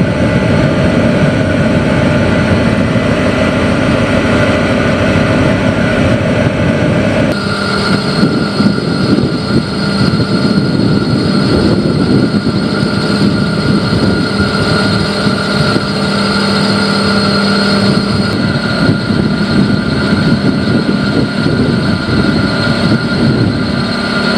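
Diesel engine of a Joint Light Tactical Vehicle running steadily, a loud continuous rumble with a steady hum. The sound changes abruptly about seven seconds in.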